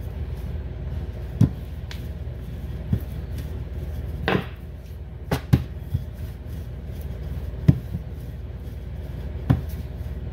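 Wooden rolling pin rolling out puff pastry dough on a counter, with several sharp knocks at irregular moments as the pin bumps and is set against the counter, and a brief rustle about four seconds in. A steady low hum runs underneath.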